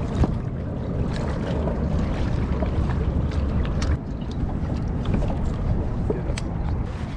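Wind buffeting the microphone over choppy water lapping at a kayak, with a few short sharp clicks. The level dips slightly about four seconds in.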